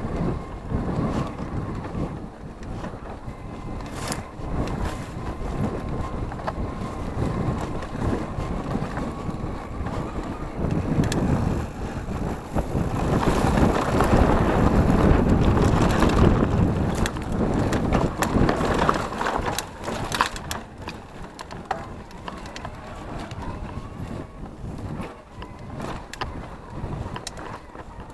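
Mountain bike riding a dirt singletrack: wind buffeting the microphone, with tyres crunching over dirt and stones and the bike rattling over bumps. It is loudest on a rough, stony stretch about halfway through.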